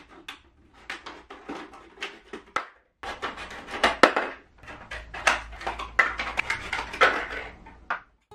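Scissors snipping through a large, thin plastic water bottle, with the plastic crackling between cuts in quick irregular snaps. The sound drops out completely for a moment about three seconds in, then carries on.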